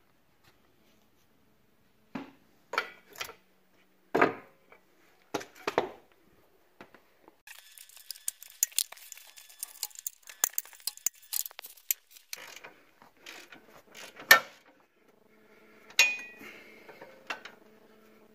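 Hand tools clinking and knocking on metal, then a ratchet wrench clicking rapidly for several seconds as a bolt under the car is turned, followed by more metal clanks, one of them loud. A faint steady hum comes in near the end.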